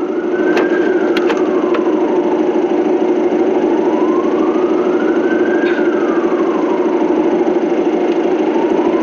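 Siren wailing slowly, rising and falling about once every five seconds, over a steady low hum.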